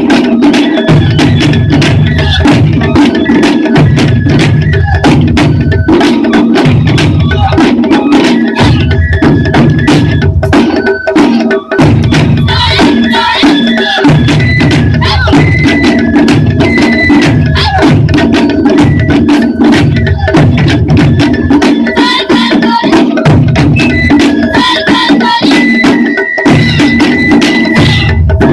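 Japanese taiko drum ensemble playing loudly: fast, dense strikes over pulsing passages of deep big-drum beats, with sharp clacking accents. High held tones sound over the drumming.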